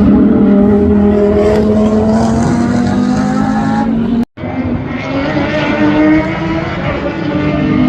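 Racing car engines running at speed, as two separate recordings joined by a momentary cut to silence about four seconds in. Before the cut the engine note holds nearly steady and sinks slightly; after it a new engine note rises and falls.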